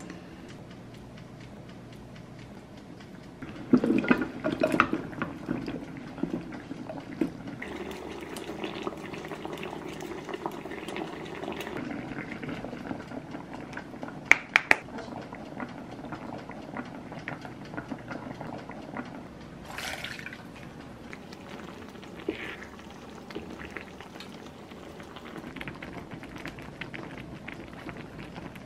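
Liquid poured into a frying pan, then pieces of food dropped into it with splashes and a few sharp clinks.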